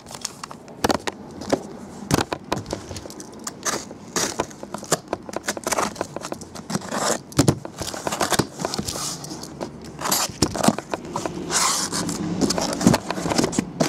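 Box cutter slicing through packing tape on a cardboard case, then the cardboard flaps pulled open and the boxes inside handled: a dense run of scrapes, rips and clicks.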